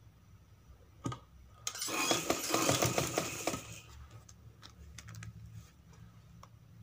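Fabric and small metal parts being handled at a hand sewing machine: a sharp click about a second in, then about two seconds of clattering and rustling, and a few light clicks after.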